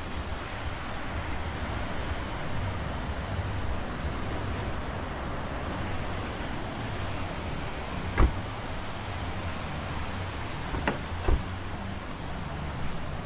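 Wind buffeting the microphone over the steady wash of ocean surf breaking on a rocky shore. A few sharp knocks stand out, one about eight seconds in and two close together near eleven seconds.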